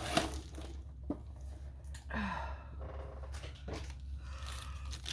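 Hands handling a rolled diamond-painting canvas in a plastic sleeve on a wooden table: a few light knocks and taps, and a rustle of the plastic about two seconds in, over a low steady hum.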